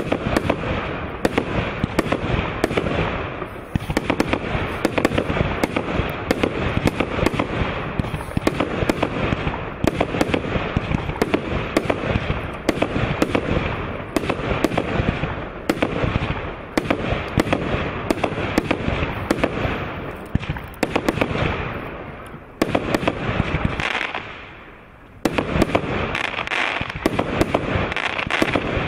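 Multi-shot fireworks cake firing continuously: rapid shots and aerial bursts tumbling over one another, with a short lull about four seconds before the end, then another loud volley.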